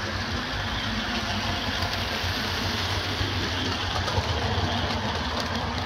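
Bachmann OO gauge model train, a GWR Hall class locomotive hauling coaches, running along the track: a steady motor hum with the rumble and light clicking of wheels over the rails, a little louder as the coaches pass close about four seconds in.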